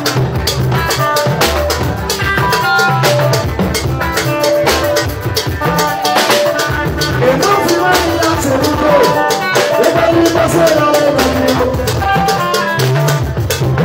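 Live dance band music with a drum kit and hand percussion keeping a steady, dense beat under short repeated melodic notes; about halfway through, a wavering melodic line comes in over the top.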